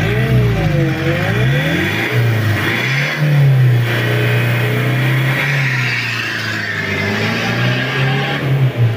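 Mitsubishi L200's 4D56 turbo-diesel engine revving up and down for the first couple of seconds, then running at fairly steady revs under load as the pickup pulls away, with a drop in revs near the end.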